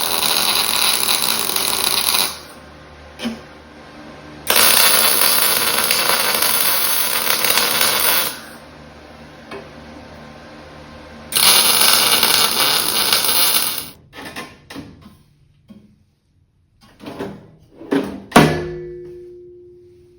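Electric arc welder laying short welds on a sheet-steel drawer face: three bursts of steady arc hiss lasting a few seconds each. After them come a few light clicks and one sharp metal clang that rings and fades.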